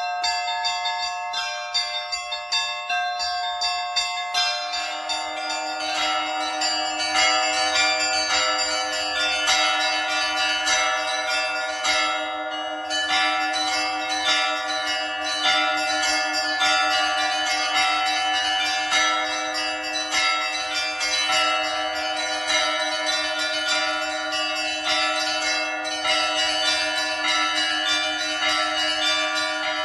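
Russian church bells rung by a bell-ringer in a quick, continuous peal of many small bells struck in rhythm. About four and a half seconds in, a larger, lower-pitched bell joins and keeps sounding beneath them.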